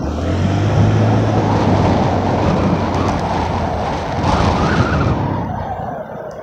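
A small gas-engined vehicle riding along, with a steady low engine hum over the first couple of seconds under heavy wind rush on the microphone. The noise swells briefly a little past the middle, then eases off toward the end.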